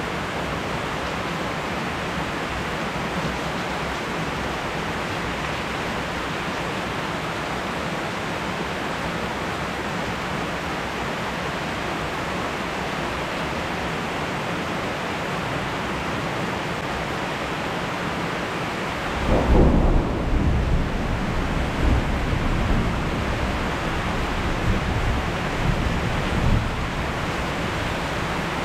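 Steady heavy rain. About two-thirds of the way through, a sudden clap of thunder breaks in and rolls on as a deep, uneven rumble for several seconds, then fades back under the rain.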